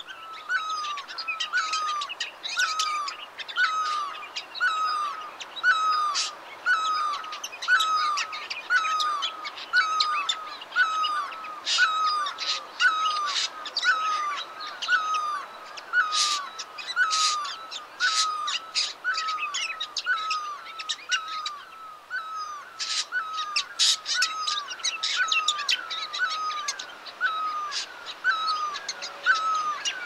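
Chorus of songbirds: one call repeated evenly, about three times every two seconds, under many higher chirps and twitters.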